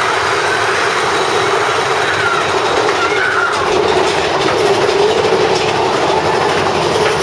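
Big Thunder Mountain Railroad mine-train roller coaster running along its track: a steady, loud rumble and rattle of the cars on the rails.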